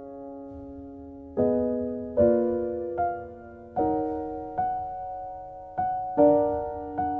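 Background music: soft piano chords struck about once a second and left to ring out.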